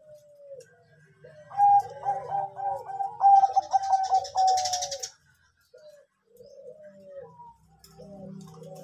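Zebra dove (Bangkok-type perkutut) cooing: soft scattered coos, then a quicker, louder rolling run of coos from about a second and a half in that breaks off near the middle, followed by softer scattered coos again.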